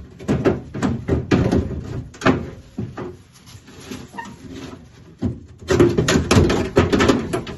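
Clunks, knocks and rattles of hardware being handled and moved about in a 1967 Mustang door during dismantling. They come in a busy run in the first couple of seconds and a second, louder flurry near the end.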